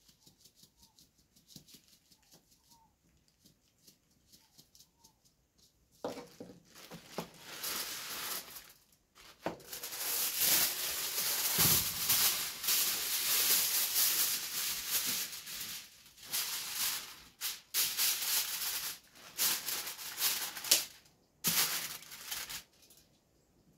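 A seasoning container shaken hard, rattling in irregular spells from about six seconds in: the seasoning is clogged and won't come out.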